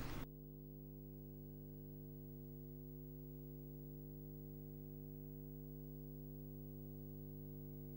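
Faint steady electrical hum, a low buzz holding one unchanging pitch, that starts and stops abruptly.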